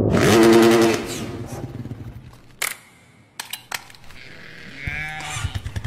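A loud, wavering bleat-like animal call in the first second, then a few sharp clicks. A low steady hum starts near the end.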